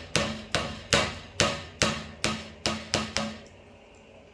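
A metal hand tool tapping sharply and repeatedly on the metal frame of an airsoft gas blow-back pistol, about two knocks a second, each ringing briefly. The run of knocks stops a little over three seconds in.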